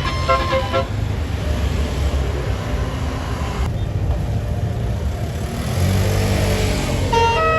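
Tour bus going past, its engine and road noise loud and low, with the end of a multi-note telolet horn tune in the first second. Another telolet horn melody starts up near the end.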